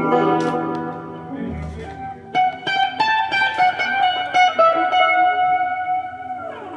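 Guitar music: plucked notes ringing, with a quick run of picked notes starting about two seconds in.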